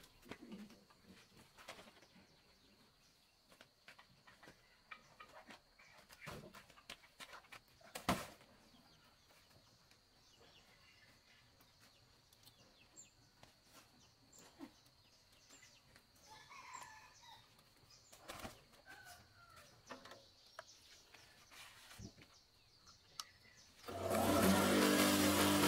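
Scattered faint knocks of wood being handled, with faint chicken clucking. Near the end an electric motor on a stand-mounted chopping machine is switched on and runs with a steady hum, the loudest sound here.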